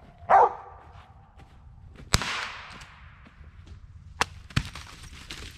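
A Mountain Cur gives one loud bark. About two seconds later a single sharp crack echoes through the woods, and two lighter snaps follow near the end.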